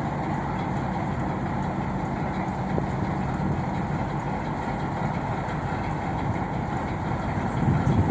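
ChME3 shunting diesel locomotive's six-cylinder engine running steadily with a low hum as it hauls a freight train, getting louder near the end.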